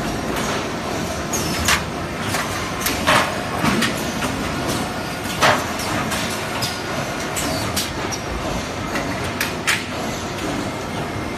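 Automatic shelf welding line running: a steady mechanical din broken by irregular sharp metallic clanks and knocks, the loudest about five and a half seconds in.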